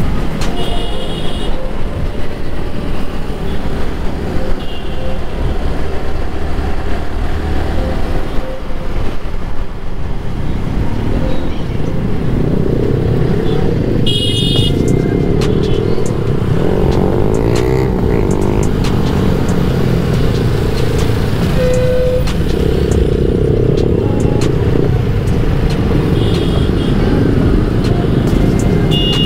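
Motorcycle riding along a road: steady engine and wind noise, with several short horn beeps, about a second in, around the middle and near the end.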